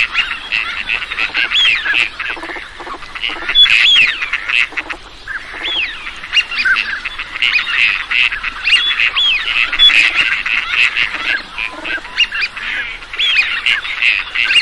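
A flock of ducks calling: a dense, continuous chorus of many short, high calls overlapping one another.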